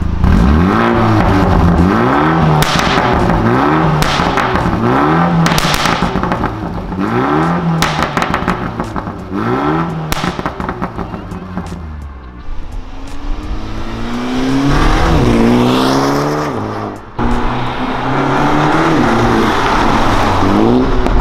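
BMW M135i's turbocharged four-cylinder engine through a Remus exhaust, blipped about seven times while stationary, each rev rising and falling, with sharp pops between some of them. After about twelve seconds it runs under hard acceleration, the pitch climbing steadily, dropping briefly at a gear change, then climbing again.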